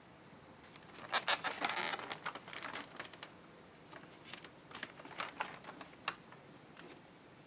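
Clear plastic blister packaging on a card-backed toy set crackling and clicking as it is handled and turned over, densest about a second in, with scattered crinkles and a sharp click near the end.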